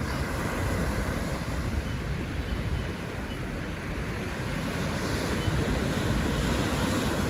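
Sea surf washing steadily onto a beach, a continuous rush of breaking waves.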